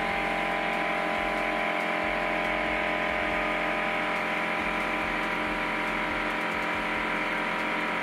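Air compressor running steadily, pushing air through the hose and clip-on chuck into a Hoosier 11X5.5-6 tubeless tire to seat its bead. The motor's hum and the rushing air hold level.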